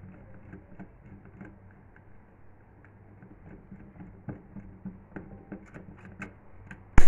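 Faint, scattered small clicks and taps of hand work on a power adapter's screw terminals: wires being fitted and terminal screws turned with a screwdriver. One sharp, loud knock near the end.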